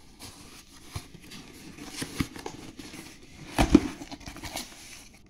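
Cardboard shipping box being opened by hand: scraping and rustling of the cardboard as the sealed flaps are worked loose, with scattered clicks and a louder rip or knock about three and a half seconds in.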